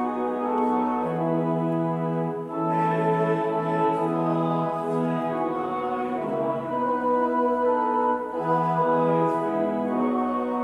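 Church organ playing a slow psalter tune in long held chords, the harmony changing every second or two.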